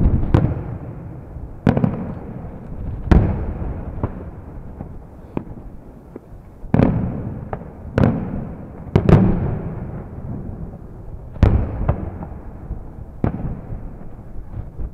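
Aerial firework shells bursting overhead, about ten sharp bangs one after another every one to two seconds, each trailing off in a low rumble.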